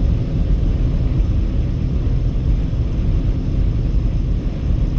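Steady low rumble of road and wind noise from a car cruising at highway speed.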